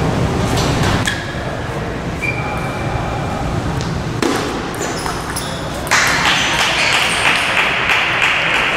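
Table tennis ball clicking off paddles and the table in play, sharp ticks at uneven spacing. About six seconds in, a louder rush of noise joins the ticks.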